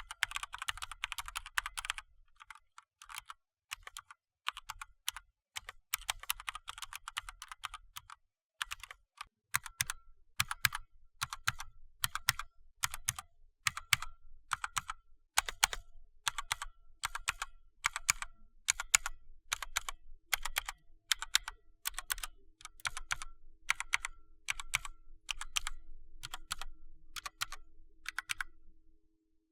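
Mechanical keyboard with Bloody BLMS Red linear switches being typed on: quick runs of keystrokes, then single keypresses at about two a second, each with a short high ping.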